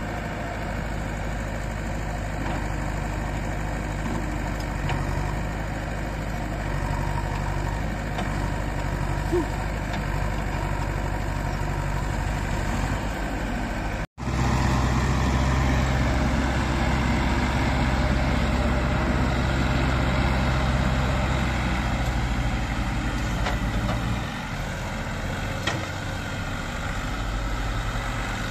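JCB 3DX backhoe loader's diesel engine running steadily while its backhoe arm digs sandy soil. The sound cuts out for an instant about halfway through, then carries on a little louder.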